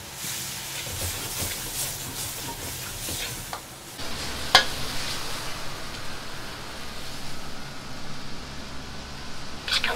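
Pork, garlic chives and bean sprouts sizzling in a wok over a high gas flame, with a metal ladle scraping and clacking against the wok. About four seconds in this gives way to the steady rush of the gas wok burner, with a sharp metal clang shortly after and another near the end.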